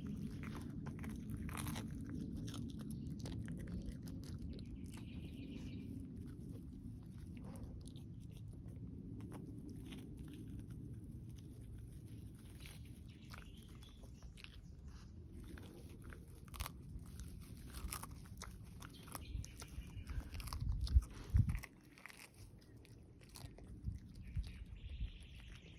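A dog chewing and crunching a treat: irregular crisp crunches and bites over a steady low hum, with a cluster of louder crunches about twenty seconds in.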